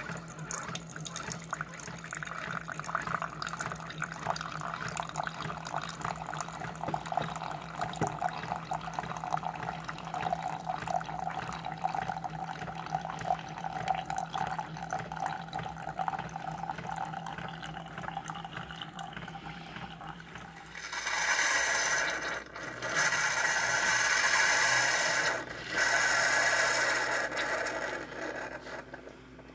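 Keurig 2.0 coffee maker brewing: a steady pump hum under coffee streaming into the cup. Near the end the hum stops and three loud bursts of hissing and sputtering follow as the machine blows the last water through at the end of the brew.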